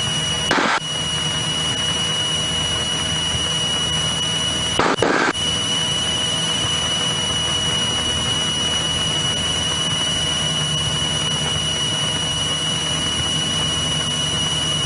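Cabin noise of a 1964 Cessna 172E Skyhawk in a climb after takeoff: its six-cylinder Continental O-300 engine and propeller drone steadily under a thin steady whine. Two short crackles cut in, about half a second and five seconds in.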